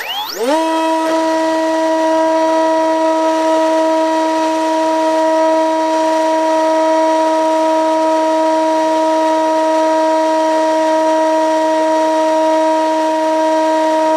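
Model airplane's electric motor and propeller, heard from the camera on board, spinning up quickly and then holding a loud, steady whine.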